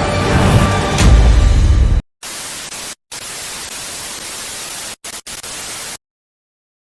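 The tail of commercial music cuts off abruptly about two seconds in. It is followed by television static, a steady, even hiss with a few brief dropouts, which stops suddenly about a second before the end.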